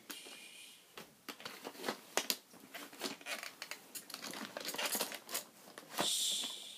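Irregular small clicks and rustling, like handling and fabric noise close to the microphone, with a brief hissing rustle about six seconds in.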